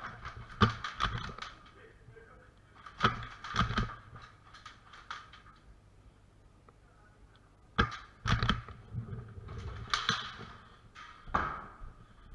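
Sharp snaps and knocks in a handful of short clusters a few seconds apart: airsoft guns firing in a close-quarters game.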